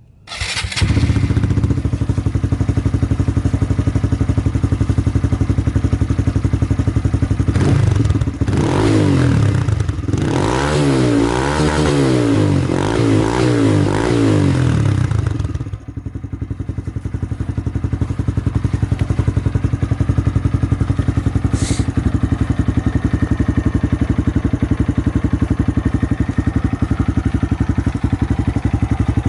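Honda MSX125 (Grom) 125cc single-cylinder four-stroke motorcycle engine through an aftermarket exhaust, idling, then revved up and down repeatedly for several seconds about a third of the way in, then settling back to a steady idle.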